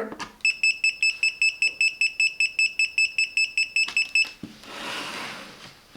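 Digital multimeter's live-wire detection alarm beeping: a rapid train of short, high-pitched beeps, about eight a second, that stops abruptly after about four seconds, signalling that the probe is sensing live voltage. A soft hiss follows.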